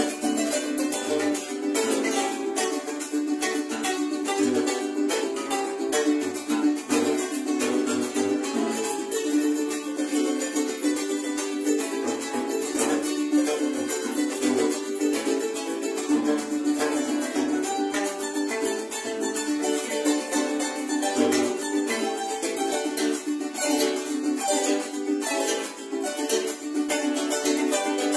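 Solo wooden harp being played by hand, an unbroken flow of plucked notes.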